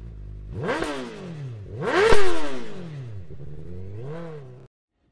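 An engine idling, then revved three times, its pitch climbing and falling each time. The second rev is the loudest, with a sharp crack at its peak, and the third is short. The sound cuts off suddenly near the end.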